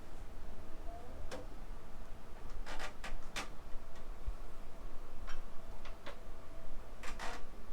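A scattering of sharp clicks during a chiropractic adjustment, about seven in irregular succession, some in quick pairs.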